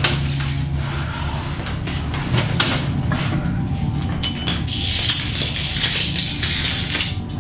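A few sharp metallic clinks over a low steady hum, then a loud hiss for about two and a half seconds that cuts off suddenly near the end.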